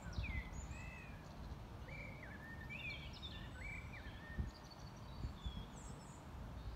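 Small birds singing and chirping: a series of short whistled, slurred phrases from more than one bird, over a low, uneven rumble of wind on the microphone.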